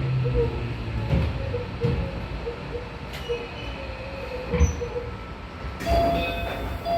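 Running sound inside a refurbished Keio 8000 series electric train (PMSM IGBT-VVVF) slowing into a station. The motor tone fades out, the wheels knock over rail joints and points a few times, and a thin wheel squeal rises to a higher brake squeal in the last second or so.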